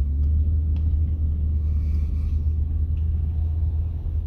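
Steady low rumble of a vehicle driving on a dirt road, heard from inside the cab, with a few faint ticks.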